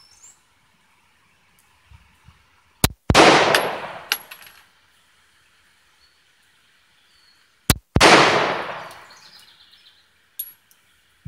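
Two shots from a CZ 52 pistol chambered in 7.62x25 Tokarev, about five seconds apart, each a sharp crack followed by a ringing decay of over a second.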